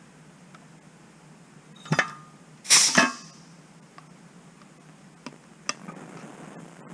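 Rivet-setting machine squeezing a solid aluminium aircraft rivet: a short sharp clank about two seconds in, then a louder sharp stroke just under a second later, with a couple of light metal clicks near the end.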